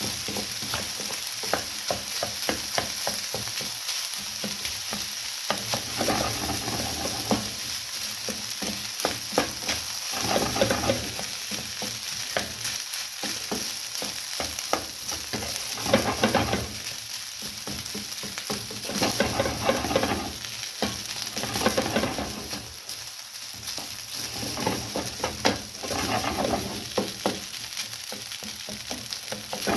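Day-old cooked rice frying with garlic, carrots, bell peppers and mushrooms in a hot oiled pan, sizzling steadily while it is stirred and scraped around the pan in repeated strokes.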